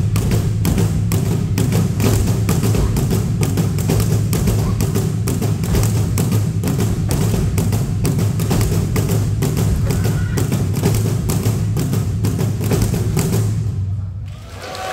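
Percussion-driven dance music: a fast, steady beat of sharp thumps over a low steady tone, stopping shortly before the end.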